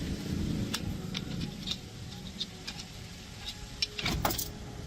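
A vehicle engine running with a steady low rumble, with scattered sharp clicks and clinks and a quick cluster of them about four seconds in.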